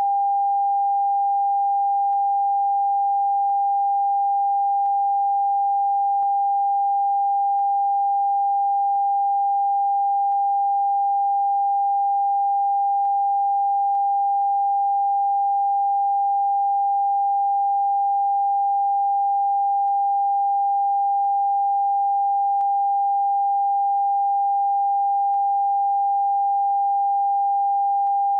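Television test-card tone: one pure, steady pitch held without a break, the signal of a station's end of broadcast.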